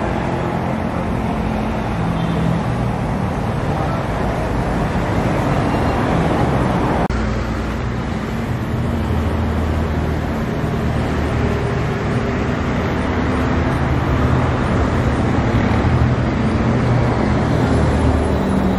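Steady road traffic noise: the running hum of car engines and tyres, with an abrupt change about seven seconds in where one recording gives way to another.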